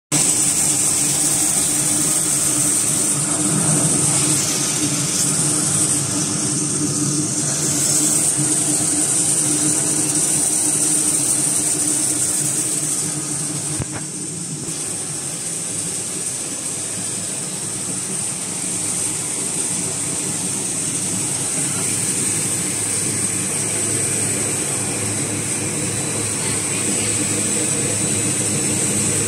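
Machinery of a popcorn production line running: a steady mechanical hum from electric motors, with a high-pitched whine over it. The hum changes a little about halfway through.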